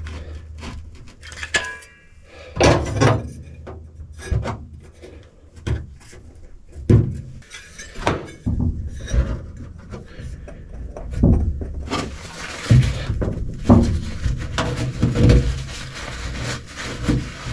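Scattered knocks and taps as round metal floor drain plugs are handled and pressed into the holes of a rubber-coated car trunk floor. In the last third this gives way to a stretch of rag rubbing over the plugs.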